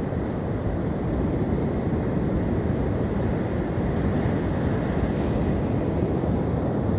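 Steady rush of sea surf and wind, with the wind rumbling on the microphone.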